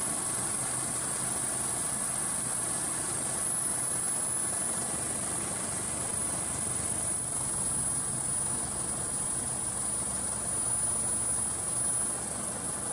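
Steady engine and rotor noise from the aircraft filming from above, typical of a helicopter heard from inside, with a constant high-pitched whine over it.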